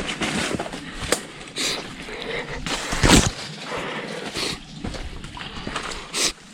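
Footsteps and rustling of people hiking along a jungle trail: irregular crunches and brushing sounds, with a louder crunch about three seconds in.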